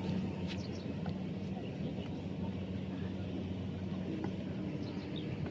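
Kubota rice combine harvester engine running steadily, a constant low hum.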